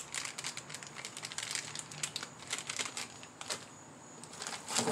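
Thin clear plastic parts bag crinkling as it is handled, in quick irregular crackles, easing off for about a second near the end before a louder rustle.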